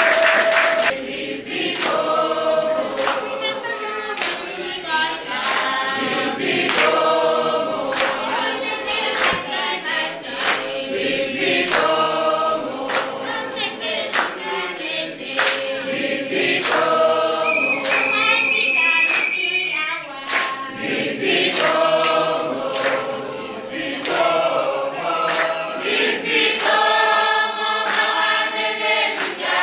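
A group of men and women singing together, with hands clapping in time to the song.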